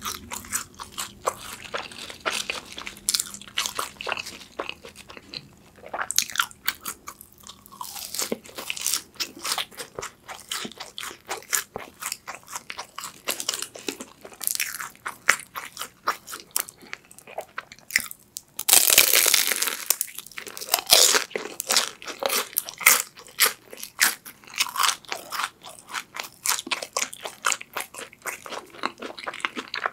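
Close-miked eating: chewing with many quick crunches and clicks, and a loud crunching bite about two-thirds of the way through, into a crisp-shelled sweet potato cheese stick.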